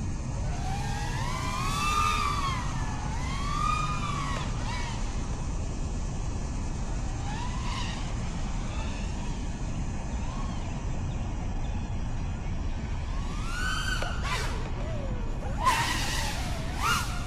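The brushless motors of a 5-inch FPV quadcopter whining, their pitch swelling up and falling back again and again as the throttle is punched and cut through flips, over a steady low rumble. The loudest surges come near the end.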